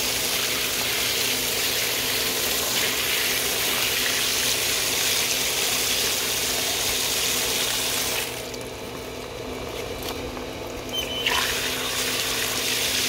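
Well water gushing out of an opened irrigation pipe fitting and splashing onto the ground and over hands as built-up gunk and mineral deposits are rinsed out. The gush drops away about eight seconds in and comes back about three seconds later.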